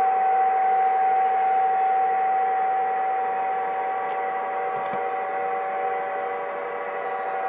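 Lionel F3 model diesel locomotive set running on the layout: a steady, high-pitched whine with several overtones, holding one pitch.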